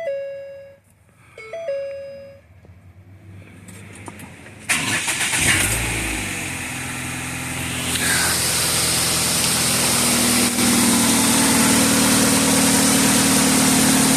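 Two short chime tones, then the 2010 Ford Escape's engine cranks briefly, fires about five seconds in and settles into a steady idle. It starts cleanly now that the corroded connector terminals behind the security-light no-crank fault have been cleaned.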